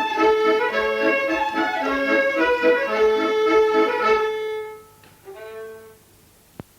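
Accordion playing a lively tune over a steady beat on the bass, which stops about four seconds in; a short final note follows, then a single click near the end.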